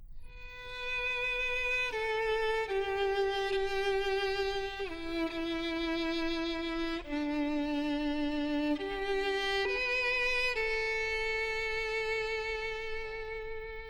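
Solo violin playing a slow melody, one long note at a time with vibrato.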